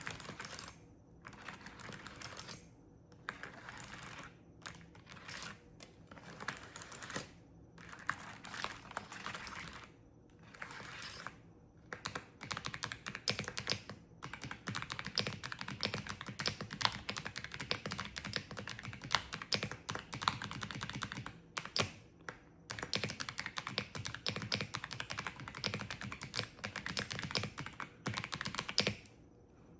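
Fast typing on a wireless keyboard: dense runs of clicky keystrokes in bursts, broken by brief pauses.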